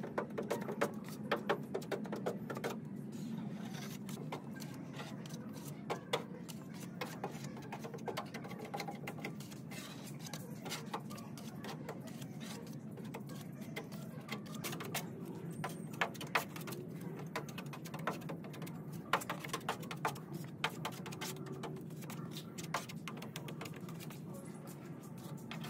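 Body filler being mixed and spread with a putty knife and plastic spreader on a steel car hood: irregular scrapes and clicks over a steady low hum.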